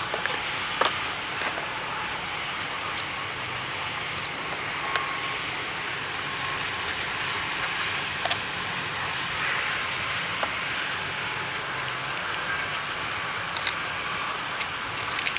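Cardboard box, foam and clear plastic case being handled during unboxing: scattered light clicks and taps, more of them near the end, over a steady background hiss.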